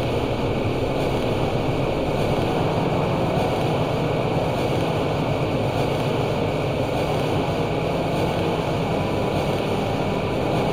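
Dense, steady rumbling noise drone from an experimental industrial track, with no clear beat or melody.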